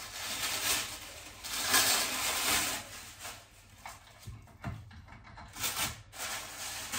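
Paper wrapping rustling and crinkling as it is pulled off a telescope tube, loudest in the first few seconds and then in shorter, quieter flurries.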